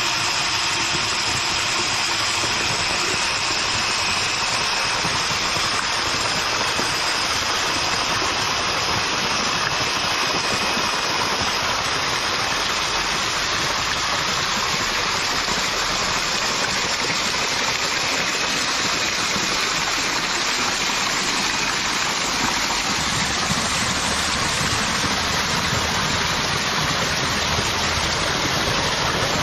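Water gushing steadily from the outlet pipes of a model hydro dam and splashing onto a spinning paddle-wheel turbine, a constant rush. A faint high whine runs over it in the first half.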